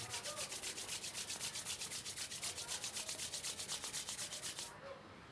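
Palms rubbed briskly back and forth against each other, about eight strokes a second, stopping near the end: hands being rubbed together to warm them before they are cupped over the eyes.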